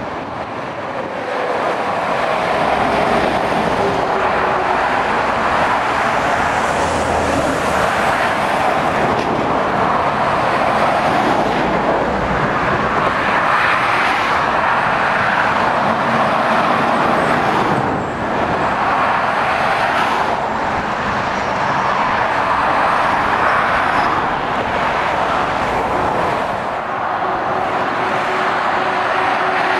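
Motorway traffic of articulated lorries and cars passing: a continuous rush of tyre and diesel engine noise that swells and eases as vehicles go by.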